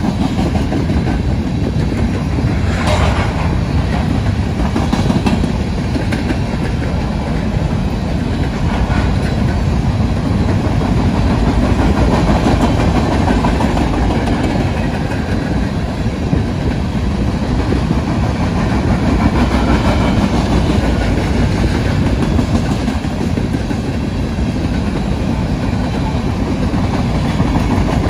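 Covered hopper cars of a BNSF freight train rolling past, a steady loud noise of steel wheels running on the rails, with a brief high screech about three seconds in.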